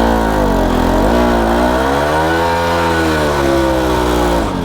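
Bajaj Pulsar RS200's single-cylinder engine being revved up and back down in long swells, highest about halfway through, then falling off sharply near the end. The engine is revved for a burnout meant to finish off the worn rear tyre.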